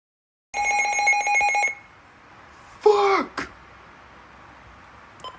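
About a second of a pulsing electronic ringing tone, then a short steeply falling electronic sound and a click, then two faint short beeps.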